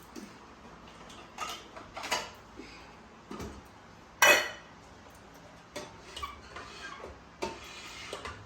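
Irregular light clinks and knocks of hard objects, with one louder sharp clack about four seconds in.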